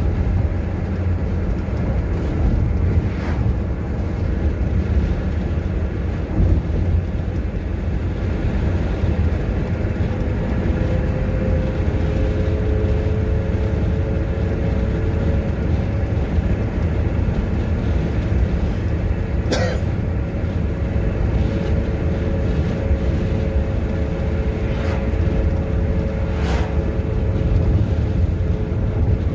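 Road and engine noise of a moving car heard from inside the cabin: a steady low rumble, joined about ten seconds in by a faint steady hum. A few brief clicks cut through, the sharpest about two-thirds of the way through.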